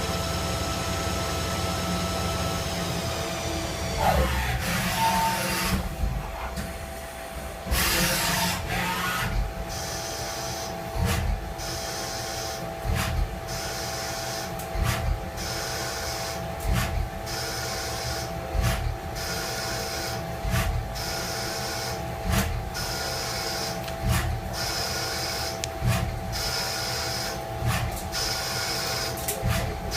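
CNC machine tool running, with a steady whine throughout and a falling glide in pitch during the first few seconds. From about nine seconds in, short sharp bursts recur at a regular pace.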